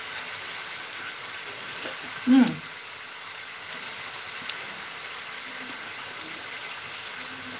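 Butter-and-sugar caramel with pineapple pieces sizzling steadily in a pan. About two seconds in, the cook gives a short, falling "mm" as she tastes it.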